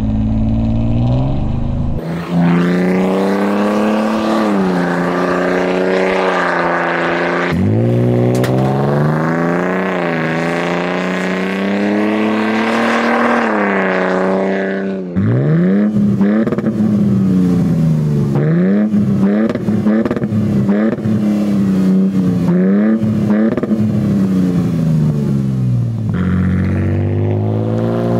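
Toyota Tundra TRD Pro's twin-turbo V6 through a Carven cut-and-clamp muffler and resonator-free TRD axle-back exhaust, accelerating hard with a deep, throaty note that climbs in pitch, drops at a gear change and climbs again. In the second half the engine note rises and falls over and over before settling low near the end.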